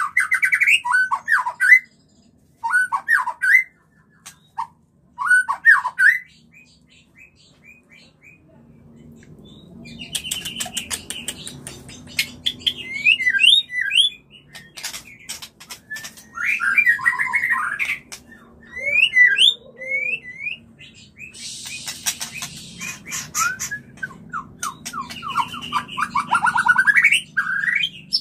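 Male white-rumped shama (murai batu) singing its breeding-season song. Short runs of quick whistled notes sweep up and down in phrases, with a lull after about six seconds. The song then comes back in denser, more varied phrases mixed with clicking notes and one brief harsh rasp about three quarters of the way through.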